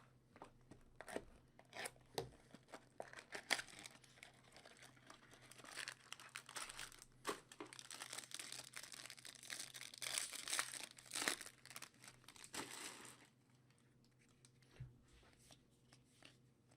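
Faint clicks of cards being handled, then several seconds of crinkling and tearing as a trading-card pack wrapper is ripped open and crumpled, which stops about three-quarters of the way through.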